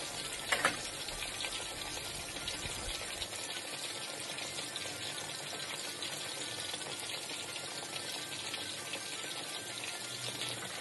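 Masala-coated basa fish fillets frying in hot oil in a pan: a steady sizzle with fine crackling, and one short knock about half a second in.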